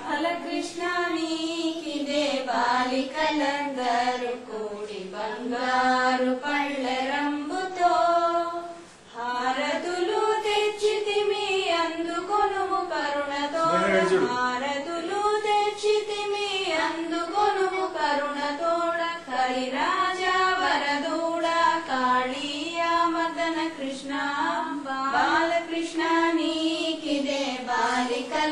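Women and girls singing a devotional song together, with a brief pause about nine seconds in.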